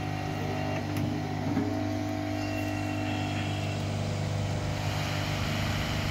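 Hot-air SMD rework station running: a steady hum from its blower with a hiss of air, the hiss growing a little stronger about halfway through as the nozzle is held over the board to reflow the solder under a replacement MOSFET. A couple of light knocks near the start.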